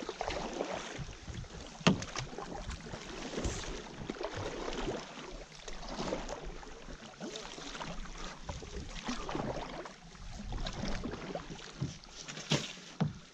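Canoe paddles stroking through water, with splashes and drips from the blades, and a sharp knock about two seconds in. Near the end there is a brief sharp scrape as the canoe's bow runs up onto the shore.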